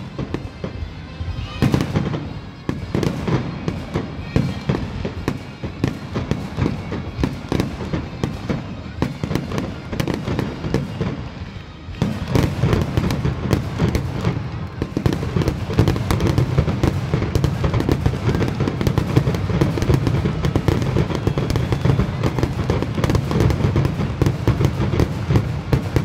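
Aerial fireworks shells launching and bursting in rapid succession, a dense barrage of bangs and crackles that gets louder and denser about twelve seconds in.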